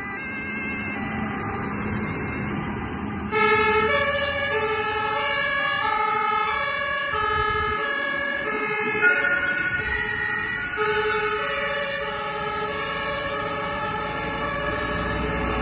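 German fire engines' two-tone sirens (Martinshorn) sounding as the vehicles pull out one after another: a louder siren cuts in about three seconds in, and a second one overlaps it from about eleven seconds.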